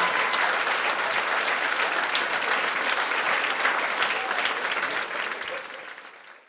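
Audience applauding steadily, a dense patter of many hands clapping, fading out near the end.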